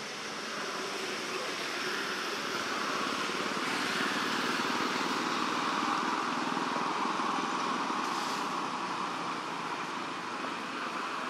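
Steady outdoor background noise, a rushing hiss that swells toward the middle and eases off again.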